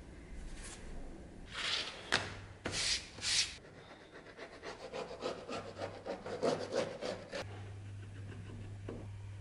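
Leather and wooden insert strips being handled and marked out with hand tools for a leather scabbard: a few separate scraping strokes, then a run of quick scratchy strokes along the leather. A low steady hum comes in near the end.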